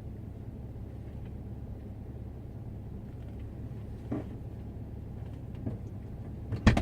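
Off-road vehicle's engine idling with a steady low hum, with a sharp knock near the end.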